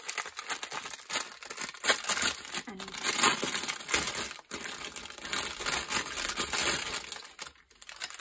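Clear plastic packaging crinkling and crackling as a bundle of bagged diamond-painting drills is unwrapped and handled, with a few sharper crackles.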